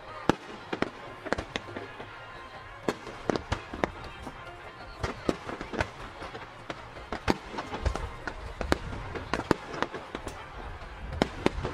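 Aerial fireworks shells bursting: irregular sharp bangs and crackles, with heavier, deeper booms near the end.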